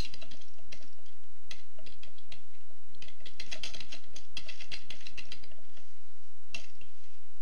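Typing on a computer keyboard: irregular key clicks in quick runs, which stop about six and a half seconds in, over a steady low hum.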